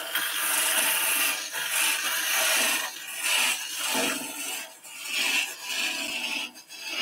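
Thin parting tool cutting a groove into a wooden blank spinning on a lathe: a scraping, hissing cut that comes in short passes with brief breaks.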